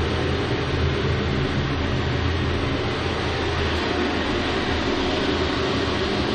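Cleaver-Brooks four-pass dual-fuel fire tube boiler firing: a steady, even rushing noise of the burner and its combustion air with a low hum underneath.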